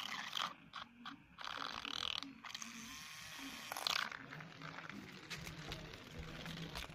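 Small DC motors of a homemade toy car running faintly, cutting out and starting again several times as the battery wires are pressed together by hand.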